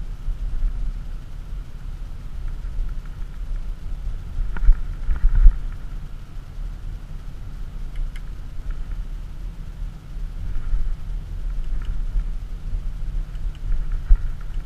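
Audi SQ7 with its 4.0 TDI V8 diesel cruising at low town speed, heard from inside the cabin as a steady low rumble of engine and road noise. A few thumps come about four and a half to five and a half seconds in, and once more near the end.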